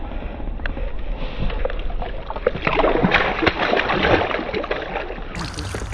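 Water splashing and sloshing beside the boat as a hooked bass is grabbed and lifted out by hand, with a dense burst of splashing in the middle.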